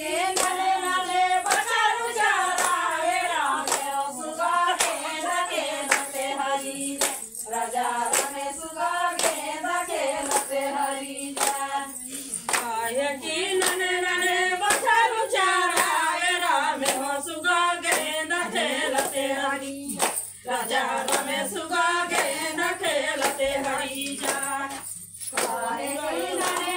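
Women singing a Chhattisgarhi Suwa (Suga) folk song in unison, keeping time with steady, even hand claps. The singing breaks off briefly twice near the end.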